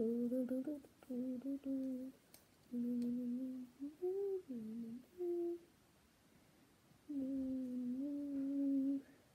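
A person humming a tune with the mouth closed: a string of held notes with short breaks, a few higher notes in the middle, a pause of about a second and a half, then one long low note near the end.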